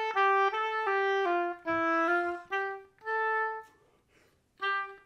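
Solo oboe playing a run of short, separate notes that step mostly downward, then a longer held note. A gap of about a second follows before the next note.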